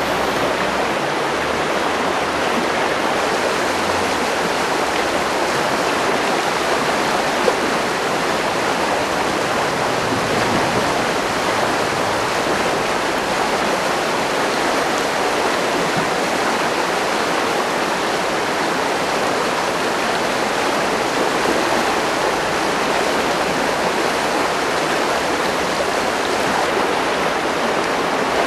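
Steady rushing of a river flowing past close by.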